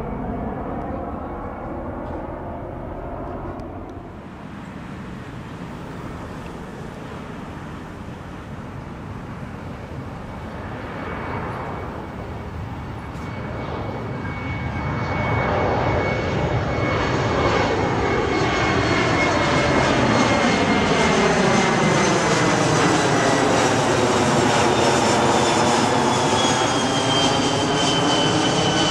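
Kawasaki P-1 patrol aircraft's four IHI F7 turbofan engines. The tail end of one jet climbing away fades out, then after a cut another P-1 approaches and passes low overhead. Its jet noise and high whine grow loud from about halfway through, and the whine drops slightly in pitch near the end as it passes.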